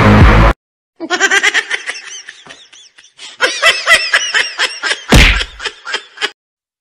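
A person laughing in a string of short, high-pitched bursts, with one sudden loud puff of breath about five seconds in. Before that, background music cuts off about half a second in.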